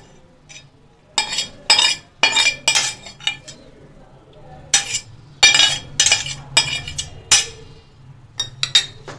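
Metal spoon scraping and knocking against a steel pan and a glass bowl as cooked chicken pieces are spooned out: a run of sharp clinks in two bunches of about five each, then a few lighter taps near the end.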